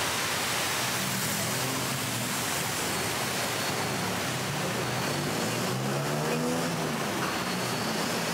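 Road traffic on a busy city street: a steady wash of engine and tyre noise from vehicles passing.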